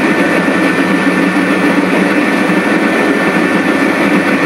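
Diesel locomotive engines running steadily as a lashup of locomotives moves by.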